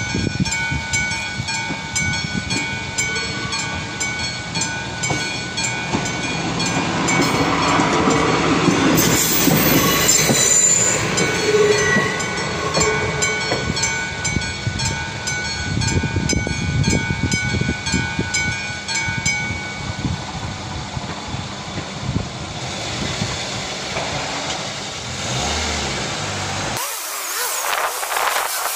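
Level-crossing warning bell of the classic type ringing in rapid, even strokes while a diesel railbus passes over the crossing. The train is loudest about eight to thirteen seconds in, and the bell stops about twenty seconds in.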